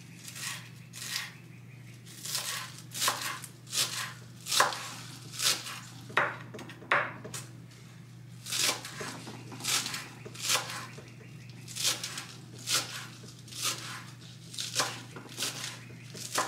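Chef's knife chopping fresh cilantro on a wooden cutting board: an uneven run of sharp knocks, about one to two a second.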